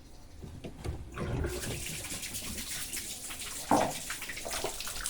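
Jet of water from a pressure washer hissing as it sprays, starting about a second and a half in after a few quiet knocks. A short louder burst sounds near the end.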